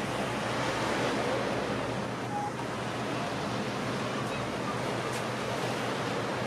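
Steady harbour ambience: an even wash of wind and water, with faint distant voices.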